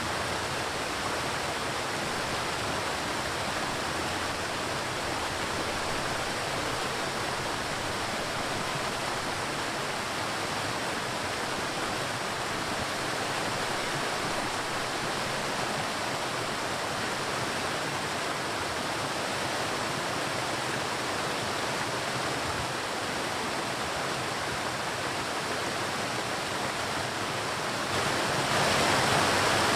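Waterfall rushing: a steady, even roar of falling water, growing a little louder near the end.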